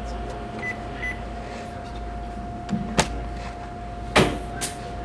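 A steady electrical hum with low room noise, two faint short beeps about a second in, a sharp click about three seconds in, and a louder knock a second later with a weaker one just after.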